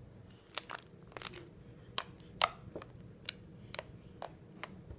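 Fluffy slime being squeezed and stretched by hand, giving about a dozen sharp, irregular clicks and pops as air pockets in the sticky slime burst.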